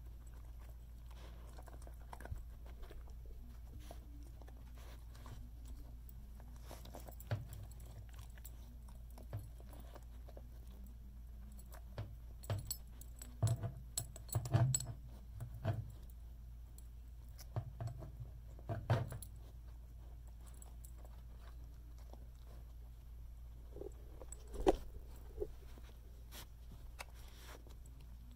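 A dog rooting through a fleece snuffle mat in a wire basket for hidden dry dog food: scattered clicks, rattles and chewing crunches, bunched together about halfway through and again near the end.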